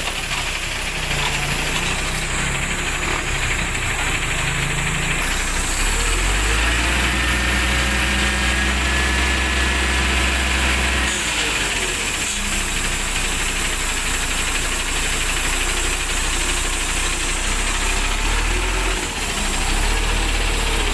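Concrete mixer truck's diesel engine running with the drum turning while it discharges concrete down the chute. The engine note gets louder and deeper about six seconds in and eases back about five seconds later.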